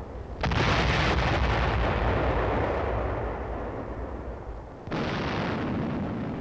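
Large demolition charges exploding: a sudden blast about half a second in and a second one just before five seconds in, each trailing off in a long rolling rumble.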